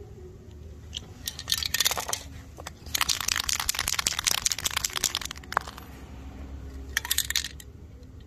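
Aerosol spray paint can being shaken, its mixing ball rattling in quick clicks, in three bouts: briefly about a second in, longest from about three to five seconds in, and a short one near the end.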